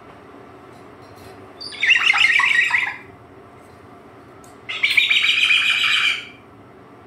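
Cockatoo giving two loud, harsh calls, each lasting a little over a second: one about two seconds in and one near five seconds.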